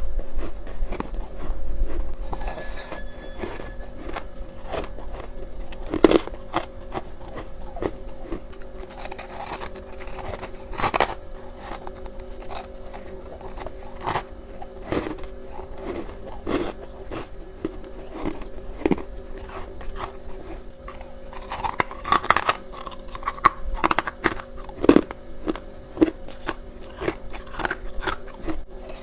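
Freezer frost being bitten and chewed: sharp, icy crunches at irregular intervals, every second or two, over a steady hum.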